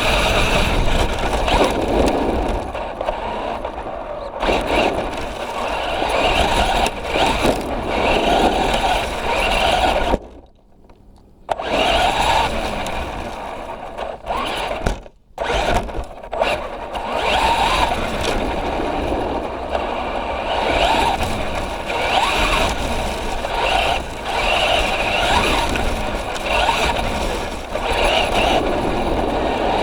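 Traxxas Rustler 4x4 RC truck driving: its electric motor and drivetrain whining, the pitch rising and falling with the throttle, over rough rattling tyre and ground noise. The sound cuts out abruptly twice about halfway through, once for over a second.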